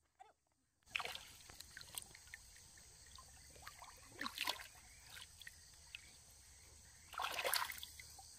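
Water splashing and sloshing in short irregular bursts over a steady hiss, starting about a second in, with the loudest, longest splash near the end.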